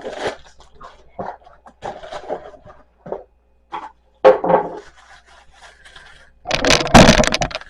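Mic stand parts and their packaging being handled and pulled from the box: scattered rustles, scrapes and light knocks, a louder knock about four seconds in, and a loud stretch of scraping and rustling near the end.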